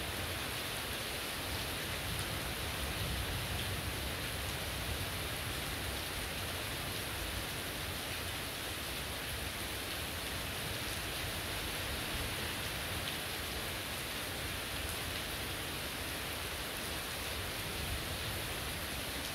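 Heavy rain pouring steadily, a dense, even hiss with no breaks.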